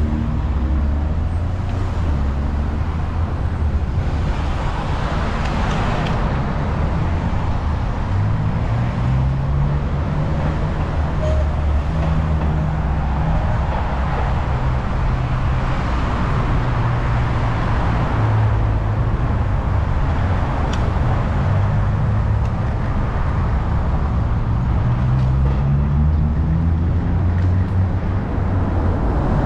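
City street traffic heard from a moving bicycle: car engines pulling away, their pitch climbing and dropping several times as they shift gears, over steady tyre and road noise.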